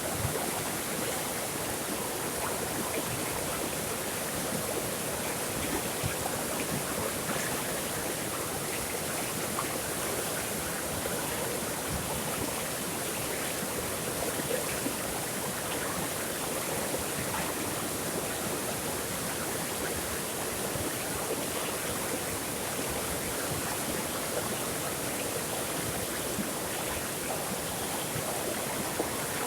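Flowing water: a stream running steadily, an even rush with small splashes and gurgles.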